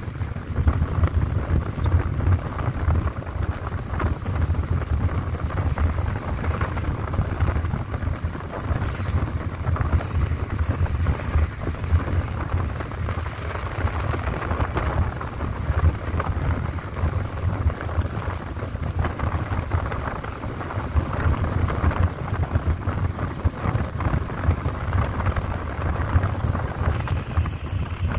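Wind buffeting the microphone with steady road and engine rumble from a moving vehicle, no clear engine note.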